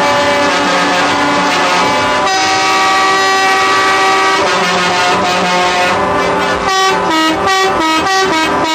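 Truck air horns sounding together in a loud sustained chord of several tones. The chord changes about two seconds in, and near the end they switch to short blasts in a quick rhythm.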